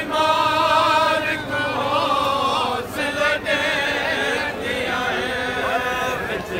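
A group of men chanting a noha, a Shia mourning lament, together, with long held, wavering sung lines.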